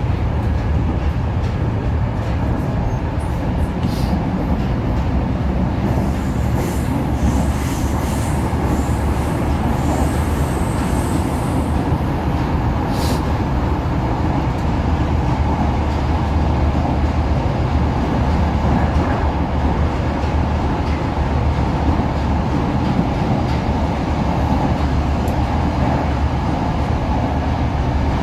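Moscow-2020 (81-775/776/777) metro train running at speed between stations, heard from inside the car: a steady low rumble of wheels and traction motors, with a faint high wheel squeal from about six to twelve seconds in.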